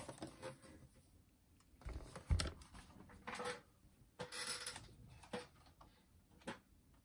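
Handling noises of a plastic boombox cabinet and parts being moved about on a table: a few scattered light clicks and knocks, with a dull thump about two seconds in.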